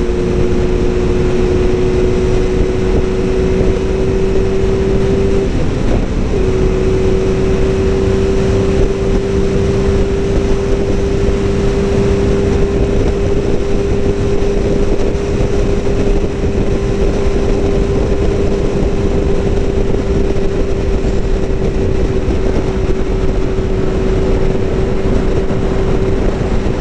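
Motorcycle engine running steadily at riding speed under heavy wind rush. Its note breaks off for about a second near six seconds in, then carries on.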